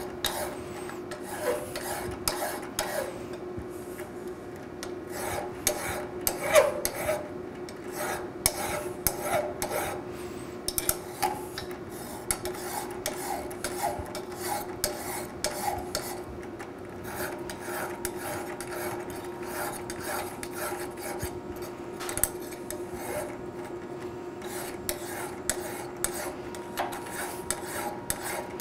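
Flat hand file rasping across the metal face of a Six Shooter gearbox housing in many short, repeated strokes, deburring the shaft holes so the shafts can be pulled out without catching. A faint steady hum runs underneath.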